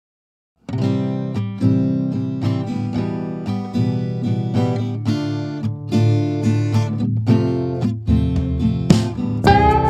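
Background music led by a strummed acoustic guitar in a steady rhythm, starting after a brief silence; a higher melody line comes in near the end.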